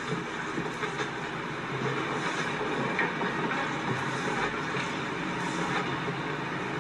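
Steady, rumbling, crackly drone from a horror film's sound design, without dialogue.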